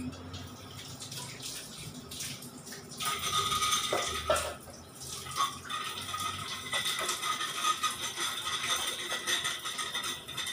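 Tap water running into a kitchen sink, growing stronger about three seconds in, with a few knocks of dishes against the sink.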